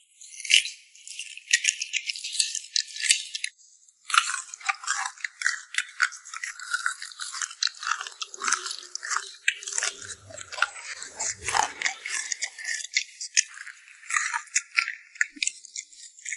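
Close-miked eating: crunching and chewing on grilled crocodile meat, a quick run of crisp crackles with a short break about four seconds in.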